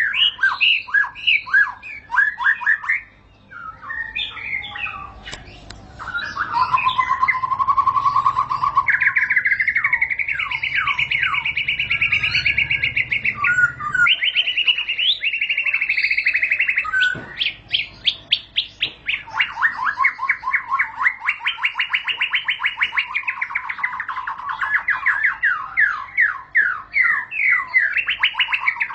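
White-rumped shama (murai batu) singing in long rolling trills: fast runs of rapidly repeated notes, held for several seconds at a stretch with only brief breaks.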